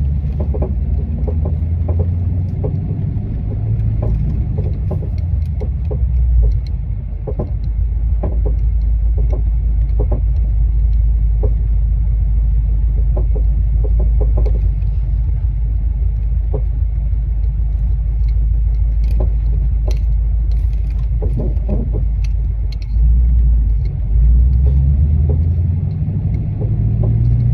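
S550 Ford Mustang driving with a steady low rumble, broken by repeated, irregular clunks and knocks from the rear of the car.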